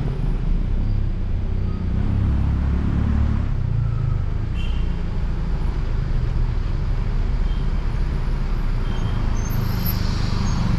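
A car being driven, its engine and road noise making a steady low rumble as picked up by a dash cam inside the cabin.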